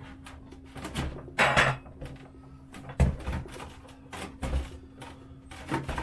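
Plastic body pieces of a Losi 5T RC truck being handled and fitted: a run of light clicks and knocks, a short scraping rustle about a second and a half in, and a louder thump about three seconds in, over a faint steady hum.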